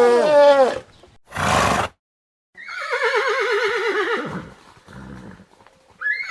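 Horse whinnying: a call that dies away about a second in, a short breathy burst, then a longer whinny with a quavering pitch, and a brief call starting near the end.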